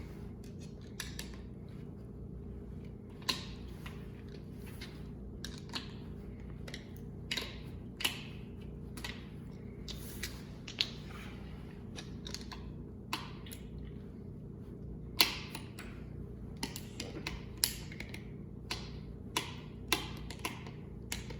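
Irregular sharp metallic clicks and taps of hand tools and small parts against an engine block while lifters are worked out during an LQ4 V8 teardown, over a steady low hum.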